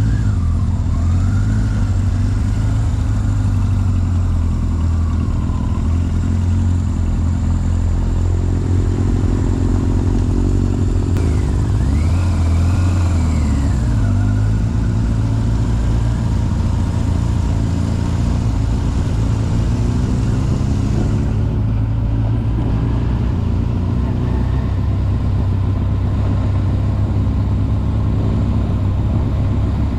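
Motorcycle engine running steadily and loudly, its pitch rising and falling only slightly.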